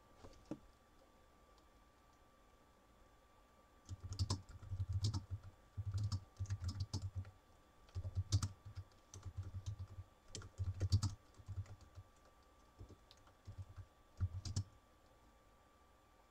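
Typing on a computer keyboard: irregular runs of key clicks, starting about four seconds in and stopping shortly before the end.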